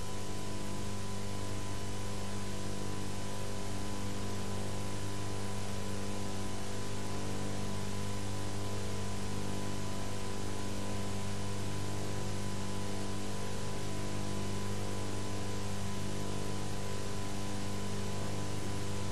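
Steady electrical mains hum with a stack of buzzing overtones and a thin high tone, under an even hiss, unchanging throughout.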